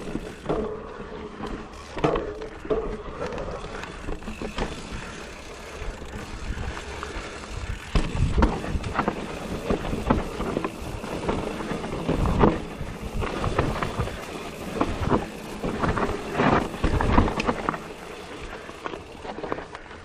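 2020 Giant Reign E+ electric mountain bike ridden along a dirt trail: wind buffeting the microphone over a steady rumble of tyres, with the bike rattling and clunking over bumps, the knocks coming thicker from about eight seconds in.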